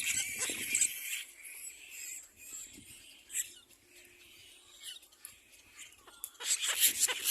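Little black cormorant chicks giving harsh, rasping begging calls as they compete for food, loudest in the first second and again near the end.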